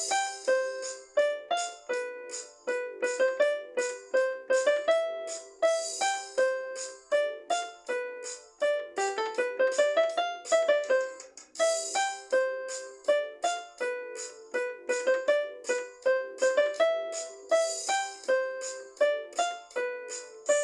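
Instrumental ensemble music of short, ringing struck notes playing a repeating tune. A bright rattling accent comes roughly every six seconds, and a quick rising run of notes comes about halfway through.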